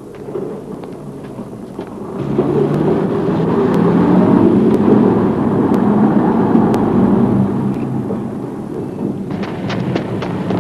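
Motor vehicle engines running, a steady rumble that swells about two seconds in and stays loud, with a few sharp clicks near the end.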